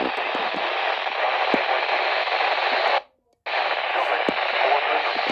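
Steady radio static hiss from a weather radio receiver with no clear signal, cutting out for about half a second roughly three seconds in before coming back.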